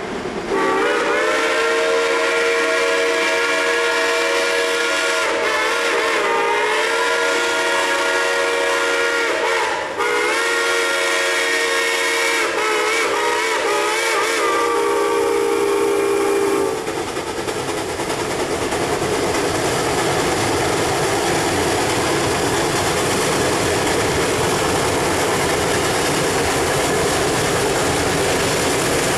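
Shay geared steam locomotive whistles blowing a long, loud chord, briefly broken twice, then cutting off about two-thirds of the way through. After that comes the steady exhaust and running noise of the locomotives working hard up the grade.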